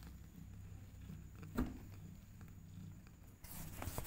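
Mother cat purring low and steady while her newborn kitten sleeps against her. There is a sharp tap about a second and a half in and a brief rustle near the end.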